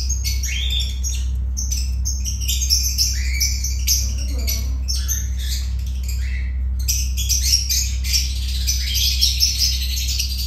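A group of lovebirds chattering: many shrill, overlapping chirps and squawks with no pause, over a steady low hum.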